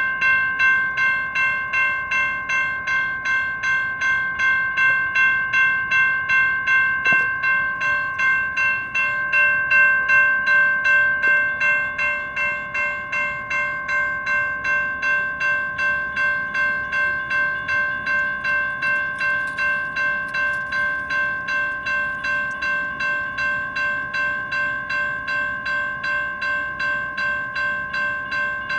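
Railroad crossing electronic bells ringing steadily, about two strikes a second, a little fuzzy. A single click comes about seven seconds in.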